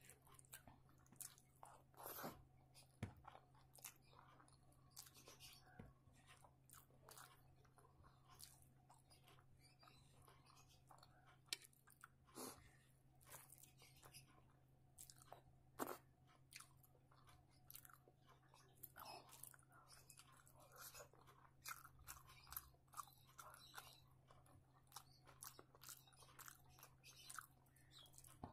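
Quiet chewing and mouth clicks as a person eats rice and a fried boiled egg by hand, with fingers mixing rice on a plate. The small clicks and smacks come irregularly throughout, over a faint steady low hum.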